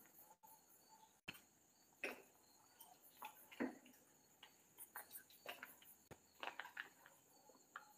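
Near silence: a few faint, irregular taps and crunches of footsteps on rubble-strewn concrete, over a faint steady high-pitched tone.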